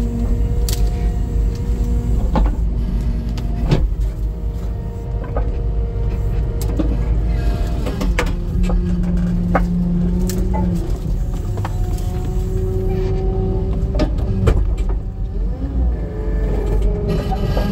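Skid steer engine running under load while its hydraulics drive a homemade log-splitter cylinder, with a hydraulic whine that shifts pitch a few times as the cylinder moves. Sharp knocks and cracks break in now and then. There is air in the hydraulic line, which makes the system sound a little funky.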